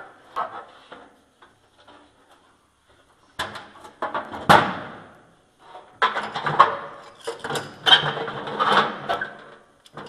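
Sheet-metal furnace blower housing and parts being handled: clanking, knocking and scraping of metal, starting about three seconds in, with a sharp knock soon after and a busy run of rattling and scraping near the end.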